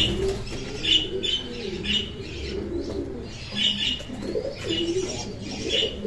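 Pigeons cooing, a low wavering coo going on and off, with short high chirps repeating about twice a second over it.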